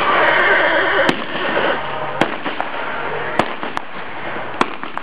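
Five sharp gunshots from single-action revolvers loaded with blanks, fired in cowboy mounted shooting. The shots come roughly a second apart, with two close together past the middle, and a wavering cry sounds in the first two seconds.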